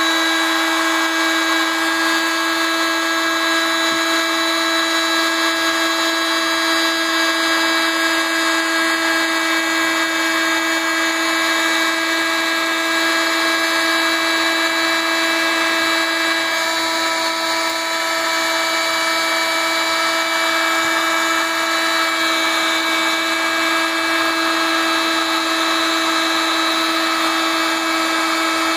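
Construction heat gun running steadily with a constant whining tone while it heats heat-shrink tubing to shrink it onto a ski pole.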